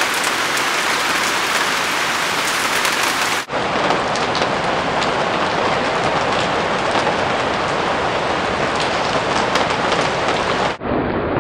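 Steady rain falling, with many small drop impacts on a wet wooden deck railing. The sound breaks off briefly twice, about three and a half seconds in and again near the end.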